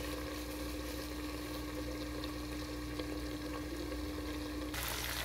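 Steady sizzling from a covered pan on the stove, with a steady hum underneath; the sound changes abruptly just before the end.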